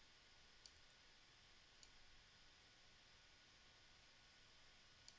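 Near silence with three faint, sharp computer mouse clicks spread through the moment, over a low room hiss.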